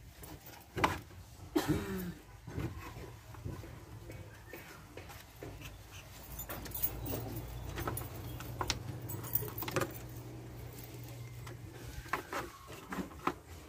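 Plastic radiator cooling-fan assembly being pushed and wiggled back into place beside a car radiator: scattered clicks, knocks and rattles of plastic against metal, the sharpest about a second in, near two seconds and toward the end. A low steady hum sits underneath through the middle.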